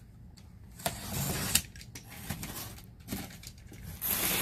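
Packaging and boxed items being rummaged through and handled, rustling with a few sharp clicks and knocks, and a louder burst of rustling near the end.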